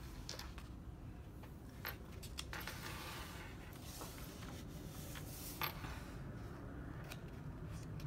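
Paper rustling as the pages of a coloring book are turned by hand, with a few sharp flicks of paper, about two seconds in and again past the middle.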